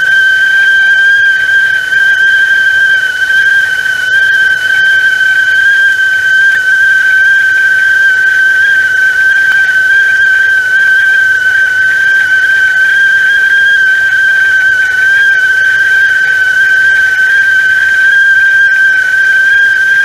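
Stovetop whistling kettle (teapot whistle) sounding at the boil: one loud, steady whistle held at a single pitch.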